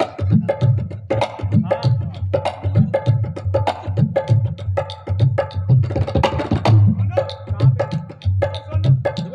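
Dholak played solo in a fast, steady rhythm. Deep strokes on the bass head alternate with sharp, ringing slaps on the treble head.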